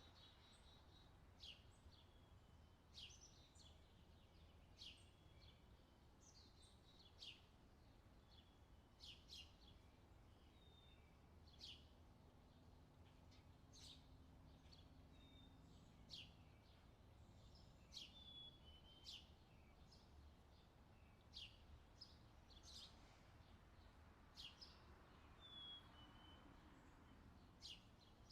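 Faint outdoor summer ambience: songbirds chirping in short, sharp calls every second or two, with a few brief falling whistles, over a low steady background hum.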